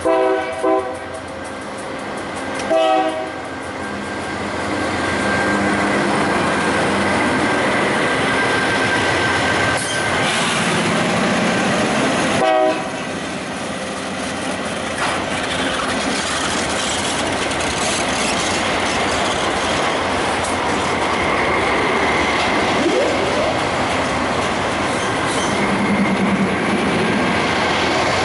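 Diesel freight train sounding several short horn blasts near the start and one more about twelve seconds in as its GE diesel-electric locomotives come up and pass close by. The hopper cars then keep rolling past, with steady wheel-on-rail noise and a thin high squeal from the wheels.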